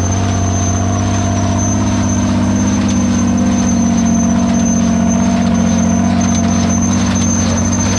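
Farmall 460 tractor running steadily under load while pulling a New Holland 269 square baler, with a thin, steady high-pitched whine over the engine sound.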